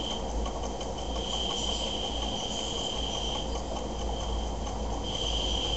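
Gas-fired Stuart 504 model steam boiler running while it builds steam pressure: a steady hiss with a thin, high whistle-like tone that drops out for about a second and a half after the middle and comes back near the end.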